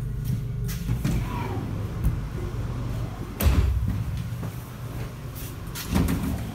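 Carriage-end doors of an ED4M electric train being pushed open and knocking shut, with the loudest knock about three and a half seconds in and another near the end, over the train's steady low rumble.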